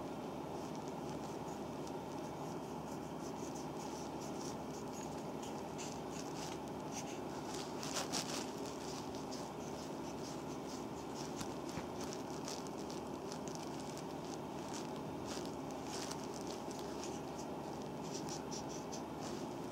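Hands and a ridged wooden massage stick rubbing and pressing on an oiled foot sole during reflexology. Soft, repeated, scratchy skin-rubbing strokes sit over a steady background hiss, with a louder cluster about eight seconds in.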